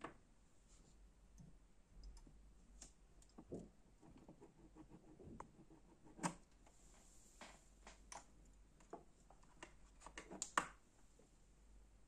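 Sparse faint clicks and knocks of hands handling vacuum tubes at a tube tester: an EL34 is pulled from its socket and a small glass miniature tube is picked up. The sharpest clicks come about six seconds and ten and a half seconds in.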